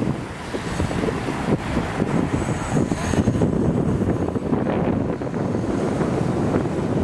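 Wind buffeting the camera's built-in microphone, a steady low rumble that flutters throughout, over surf washing onto the beach.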